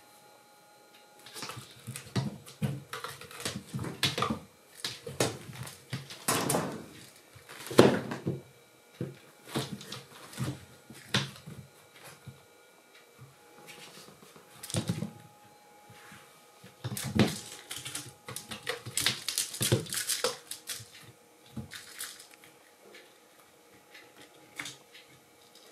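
Kittens playing around a cloth curtain and a sisal cat tree: irregular scuffles, thumps and rustles of paws, claws and fabric, with the loudest thump about eight seconds in.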